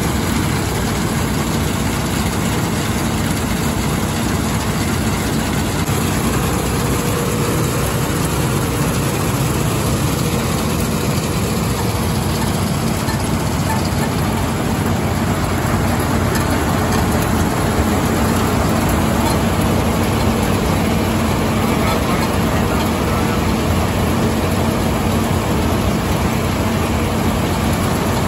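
A New Holland TC5.30 combine harvester running at a steady 2200 rpm: a loud, unchanging mechanical din with a low hum under it.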